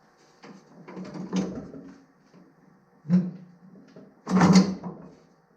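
Knocks and rattles of mower parts being handled and set down: a scraping clunk about a second in, another near the three-second mark, and the loudest clatter a little before the end.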